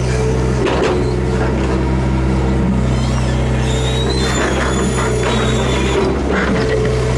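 Hydraulic excavator heard from inside the cab: the diesel engine runs steadily under load while the arm and bucket work. Repeated mechanical clicks and creaks come through, some with a short high squeak.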